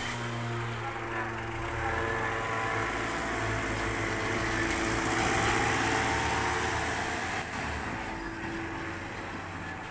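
Tata mini truck's engine running as it pulls away, growing louder to a peak midway and then easing off as it moves off down the lane.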